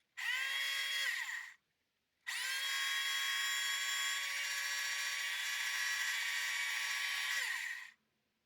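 Tamiya Electric Handy Drill, a small battery-powered hand drill built from a kit, running with a steady high whine: a short burst of about a second, then a run of about five seconds, its pitch falling each time it winds down.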